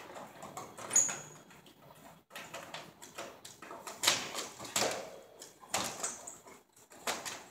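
Scattered clicks, knocks and scrapes of tubes being handled and fitted into the sockets of a ceiling light fixture, with a short high squeak about a second in and a burst of louder knocks from about four seconds in.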